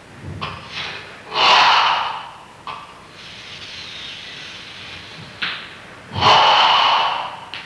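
Controlled, forceful breathing of a karateka performing Goju-ryu Sanchin kata: two loud, drawn-out hissing exhalations about five seconds apart, with short softer breaths and a long quiet hiss of breath between them.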